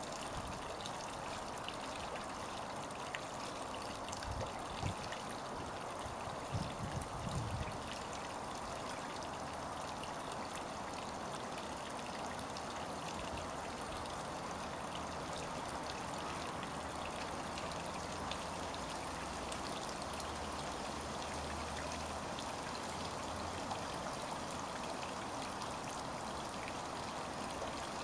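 Steady running, trickling water of a garden pond, with a few soft low bumps about four to eight seconds in.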